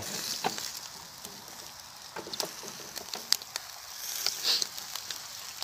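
Chicken and sausages sizzling on a wire grate over a charcoal brazier, with scattered sharp crackles.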